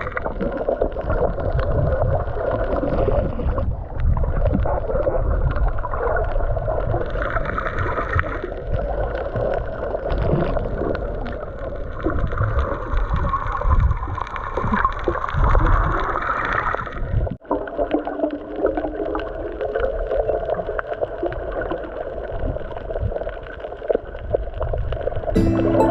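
Muffled gurgling and sloshing water with a low rumble, as an action camera picks it up underwater. The sound breaks off sharply about seventeen seconds in and resumes changed.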